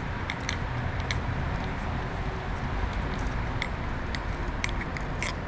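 Small metallic clicks and ticks of a hand tool on a bicycle crankset's chainring bolts as they are threaded in, over a steady low background rumble.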